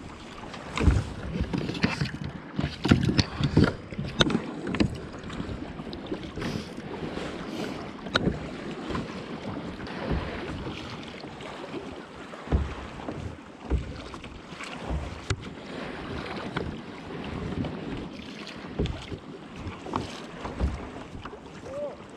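Water lapping and splashing against a plastic pedal kayak's hull as it moves along, with wind buffeting the microphone. Irregular short knocks throughout, more of them in the first few seconds.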